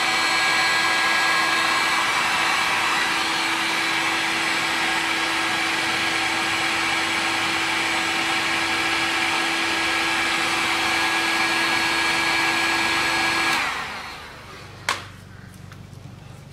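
Electric heat gun running steadily, a blower whir with a few fixed tones. Near the end it is switched off and winds down, followed a second later by a single sharp click.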